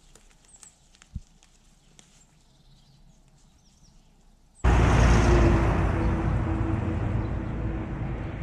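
Quiet rural air with a few faint, high bird chirps. Partway through it cuts abruptly to a loud, low rumbling rush of wind buffeting the camera microphone, which slowly eases.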